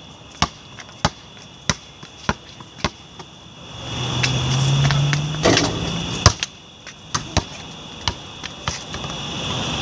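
A basketball dribbled on hard pavement, bouncing about every half second or so. It stops for a shot, with one loud hit a little after the middle, then a few scattered bounces. A low hum swells and fades in the middle, and a steady high insect chirring runs throughout.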